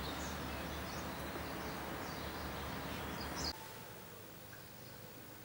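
Outdoor background noise with small birds chirping, cut off abruptly about three and a half seconds in, leaving quiet room tone.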